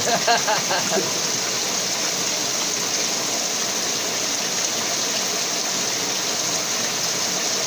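Steady rushing of a flowing stream, an even hiss at constant loudness, with a short spoken phrase in the first second.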